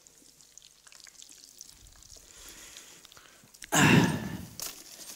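Faint sizzle of cromesquis deep-frying in a saucepan of hot oil, then a loud breathy sigh close to the microphone about four seconds in.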